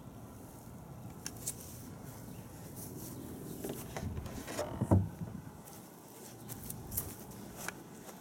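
Low rustling handling noise from a hand-held camera being carried, with scattered light clicks and one dull thump about five seconds in.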